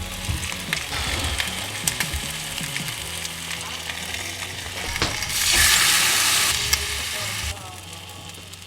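Food sizzling in a frying pan, with small clicks and knocks, and a louder burst of sizzling lasting about a second, a little past the middle.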